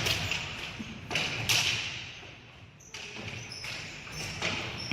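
Ball hockey play: a few sharp knocks and thuds of sticks and ball striking the floor and boards, with a quieter lull about halfway.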